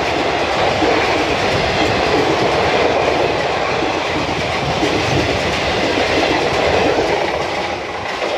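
Express train's passenger coaches running through a station at speed without stopping: a steady rush of wheel-on-rail noise with clatter over the rail joints, easing off slightly near the end as the tail of the train goes by.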